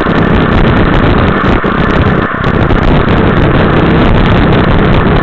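Motorcycle riding at road speed: engine running under a loud, steady rush of wind over the on-bike camera's microphone.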